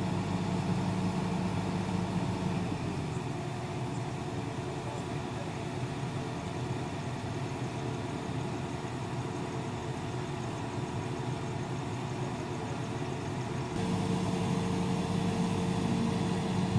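Volvo EC210 long-reach excavator's diesel engine idling with a steady hum; the tone changes abruptly, becoming fuller, near the end.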